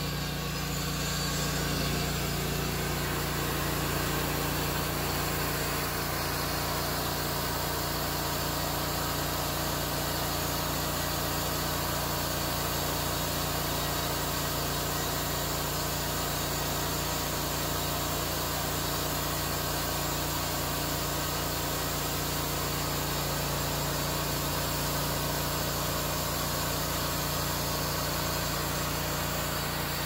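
Hud-Son Oscar 336 portable band sawmill running steadily: its engine drones at an even pitch while the band blade saws along a log.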